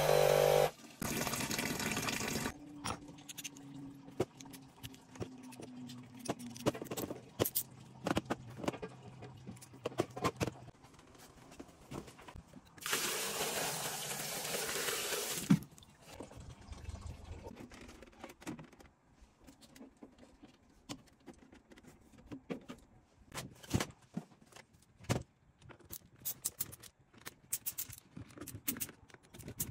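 Brown water drained from a combi boiler, tipped out of a bucket and splashing into an outside drain grate for about two and a half seconds midway. Scattered short clicks and knocks of tools and parts come before and after it.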